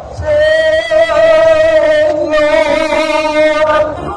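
Music: two long held notes with a wavering vibrato, each lasting about two seconds, with a short break between them.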